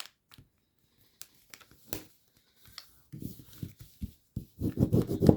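Origami paper being handled and folded by hand: a few faint ticks and crinkles, then denser paper rustling and creasing from about three seconds in, growing louder near the end.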